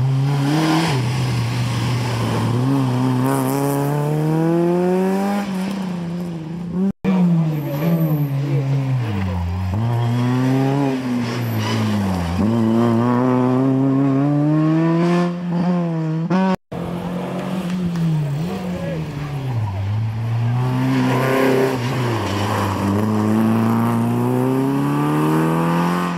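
Rally cars accelerating hard through a hairpin one after another, engines revving high with the pitch climbing and dropping at each gear change. The sound breaks off abruptly twice between cars.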